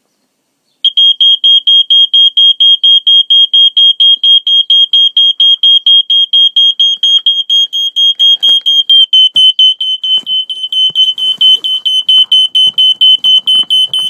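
The piezo horn of a Family Gard FG777D ionization smoke detector sounding its alarm in rapid, evenly spaced high-pitched beeps, about five a second, starting about a second in. It was set off by smoke from lit matches, so the ionization chamber is still working. Faint knocks and rustling of the unit being handled come in partway through.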